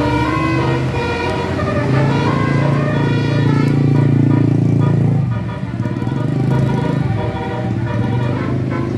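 Bus 'telolet' horn, the multi-tone musical horn set of an Indonesian bus, playing a run of changing notes, with a louder low tone swelling in the middle.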